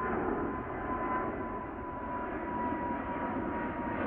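The twin GE90-115B turbofans of a British Airways Boeing 777-300ER climbing out after takeoff: a steady jet rumble with a whine that slowly falls in pitch.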